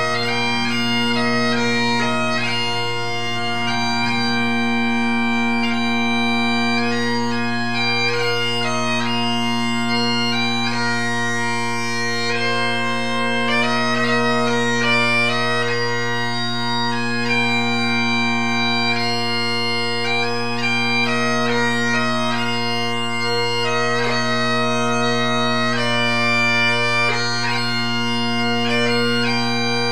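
Bagpipe music: steady drones held under a chanter melody that moves from note to note.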